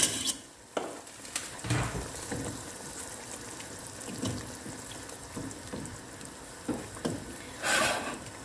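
Plastic spatula stirring chopped tomatoes into a simmering milky masala gravy in a non-stick pot, with scattered knocks of the spatula against the pan over a steady hiss of the simmering liquid. A louder stretch of stirring comes near the end.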